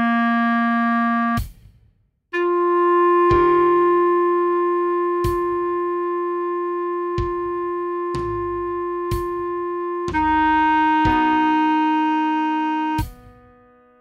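Computer-played clarinet tone playing a slow melody: a short note, a pause, a long note held for about eight seconds, then two shorter notes. Each note starts cleanly, and quieter sustained chord tones sit underneath.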